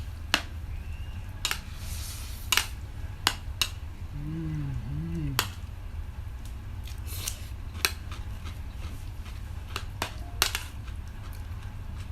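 Cutlery clinking and scraping against plates during a meal: a dozen or so sharp, irregular clinks over a steady low hum.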